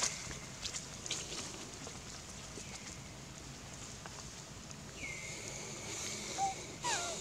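Outdoor animal calls: a long whistled call drops in pitch and then holds steady, heard a few times, the last lasting about two seconds. Near the end comes a short squeaky call that falls in pitch, over a steady high buzz.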